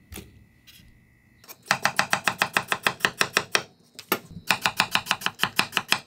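Kitchen knife slicing a peeled potato thinly on a wooden cutting board. After a quiet moment come two quick runs of even knife strikes on the board, about six a second, with a short pause and a single strike between them.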